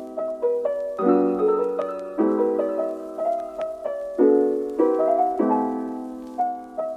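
Background music: soft piano playing chords and notes, about one struck every second.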